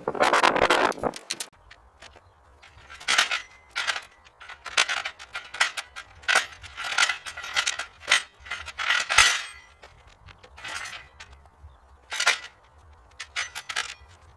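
Irregular clinks and knocks of hard objects, coming in quick clusters with short pauses between them, dense for about the first second.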